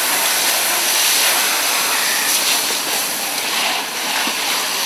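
Fire hose spraying water onto a smoking car, a steady loud hiss.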